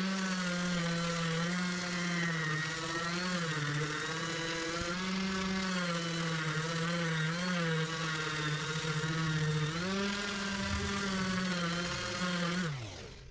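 Handheld sander running against the fiberglass keel patch, knocking down its high edges. The motor hum wavers in pitch as it is pressed and moved, then winds down near the end.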